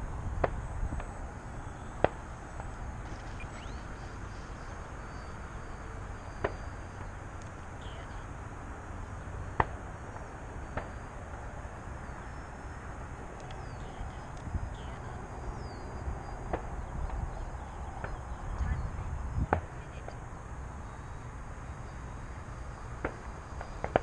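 Gusty wind buffeting the microphone, a low rumble that swells and eases, with sharp clicks every few seconds and faint high chirps in the background.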